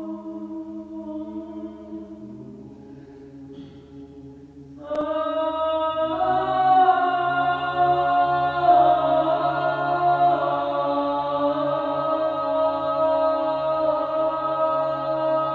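Slow, chant-like music of long held chords. It sinks low, then a louder chord comes in sharply about five seconds in, thickens a second later, and holds.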